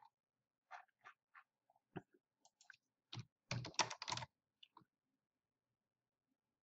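Faint computer keyboard typing: a few scattered keystrokes, then a quicker, louder run of keys about three seconds in.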